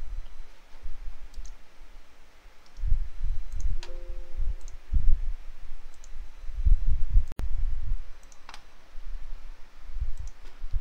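Scattered computer mouse clicks while slides are navigated, with low thuds of a headset microphone being bumped and handled. There is a brief low beep about four seconds in.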